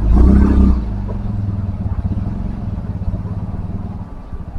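A vehicle engine running close by: a loud low rumble for about the first second, then a steadier, quieter, evenly pulsing run that slowly fades.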